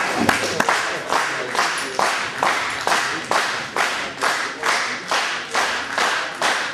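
Hall audience clapping in unison, a steady beat of about three claps a second, cheering on a weightlifter as he comes out to the bar.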